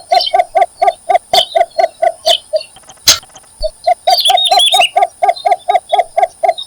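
Yellow bittern calling at the nest: a fast, even run of short low notes, about four a second, with a brief pause around the middle. About four seconds in comes a short burst of high, wavering begging chirps from the chicks, and a few sharp clicks sound between the notes.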